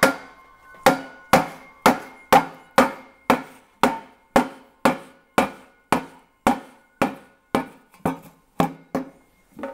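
Steady hammer taps, about two a second, on a motorcycle exhaust silencer. Each strike leaves a short metallic ring from the ceramic-coated sleeve. The taps drive the inlet end cap and perforated inner tube into the sleeve to seat them.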